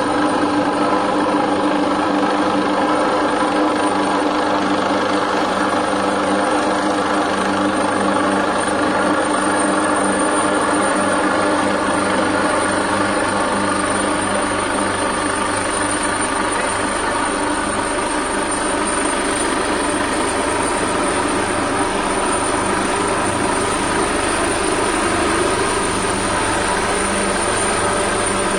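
A steady mechanical hum of several fixed pitches, running evenly at a constant level with a thin high whine above it.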